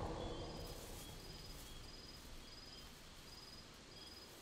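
Faint fantasy forest ambience: a deep low rumble dies away in the first second or so, leaving a soft hiss with short high insect-like chirps repeating about once a second.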